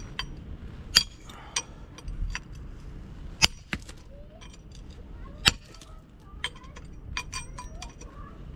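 Pieces of concrete block clinking and knocking against each other: four or so sharp knocks at irregular spacing, with lighter clinks between them.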